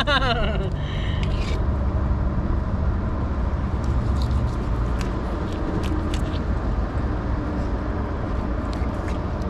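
A steady low engine rumble with a faint hum, with a few light clicks on top.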